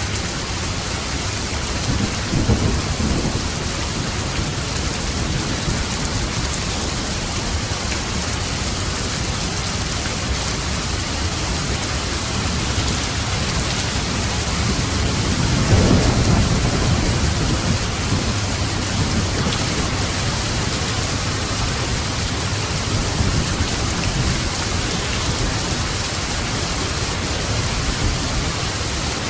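Steady rain falling, with thunder rumbling twice: a short low rumble about two seconds in and a louder, longer one around the middle.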